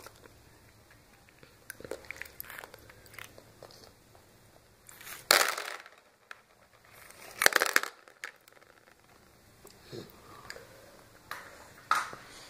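Plastic surprise eggs and candy being handled: scattered light clicks and rustles, with two louder short rattling bursts about five and seven and a half seconds in.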